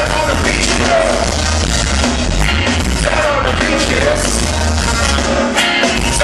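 Live ska band playing with vocals over drums, bass and guitar, with a trombone in the line-up. Loud and bass-heavy, recorded from within the crowd.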